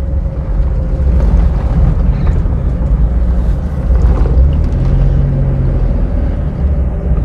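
A car driving on a paved road, heard from inside: a steady low rumble of engine and road noise with a faint steady hum above it.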